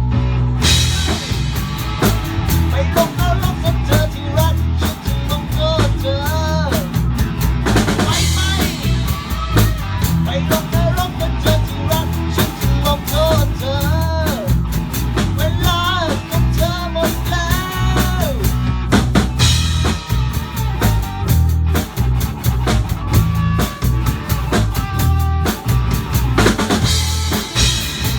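Rock band playing live in a rehearsal room: a full drum kit with bass drum and snare hits drives the beat under bass and a lead melody with bent, wavering notes.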